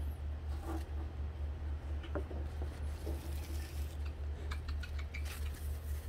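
Faint rustling and a few light clicks as a blue-and-gold macaw shifts about and spreads its wings, over a steady low hum.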